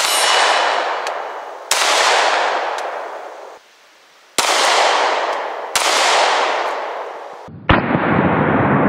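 Glock 43 subcompact 9mm pistol firing single shots about a second and a half apart, each crack followed by a long echo fading off the surrounding woods. Near the end a louder, steady, duller noise sets in.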